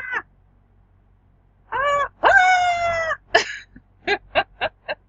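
A cat meowing: a short meow, then a longer drawn-out meow, then a quick run of short clipped calls near the end.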